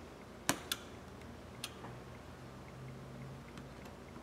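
A few small sharp clicks of a precision screwdriver and small metal parts being worked inside an opened iPhone 11 Pro Max: two close together about half a second in, and one more a second later.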